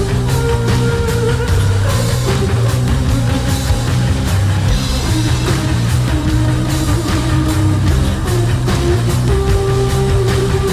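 Loud hard rock music with distorted electric guitar, held melody notes and a steady drum beat.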